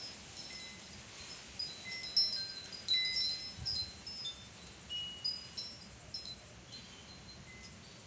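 Oriental magpie-robin singing: a string of short, clear whistled notes at many different pitches, thickest in the middle of the stretch and thinning out toward the end.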